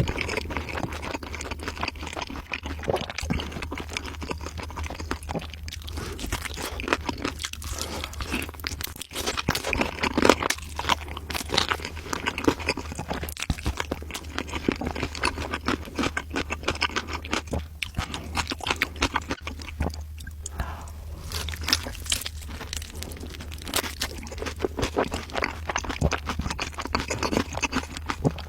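A person biting and chewing crunchy food close to the microphone: a dense, irregular run of crisp crunches, with a steady low hum underneath.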